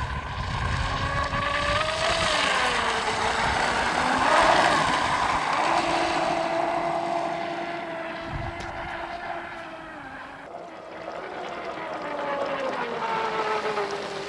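ProBoat Blackjack 29 catamaran RC speed boat running flat out and hydroplaning, its 1800kv brushless electric motor whining with the pitch sliding up and down as it speeds past. It is loudest a little over four seconds in, with a rush of spray over the whine.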